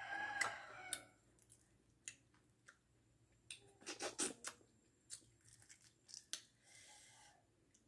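Faint scattered clicks and small crackles of a boiled fertilised quail egg's shell being cracked and peeled by hand, with soft sounds of eating.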